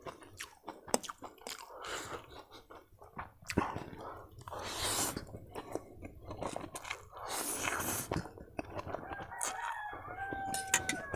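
Noodles being slurped and chewed, with clicky chewing throughout and two long, loud slurps in the middle. Near the end a rooster crows in the background, one held call.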